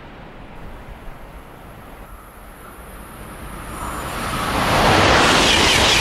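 A double-deck TGV high-speed train approaching and passing at speed: a rush of air and wheel-on-rail noise that swells from about three and a half seconds in and is loud by the end, after a stretch of faint background noise.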